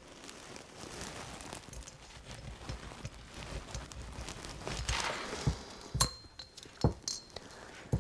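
Valve springs and keepers being fitted by hand onto a golf cart engine's cylinder head: hand-handling rustle with several sharp metal clicks and clinks in the second half, one ringing briefly.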